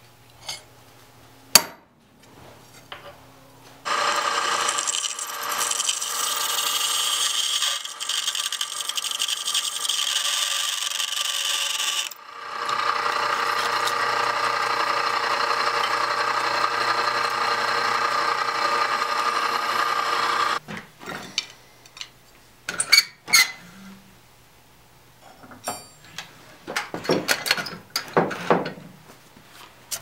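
Drill press running with its bit cutting through a forged steel cleaver blank, in two steady runs of about eight seconds each with a short break between. Afterwards come scattered light metallic clinks and knocks of tools and metal being handled.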